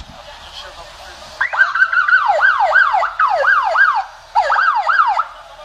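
Police car siren sounding in short bursts: a fast, repeated falling yelp, about three sweeps a second. It starts about a second and a half in, breaks off briefly near four seconds, and stops shortly before the end.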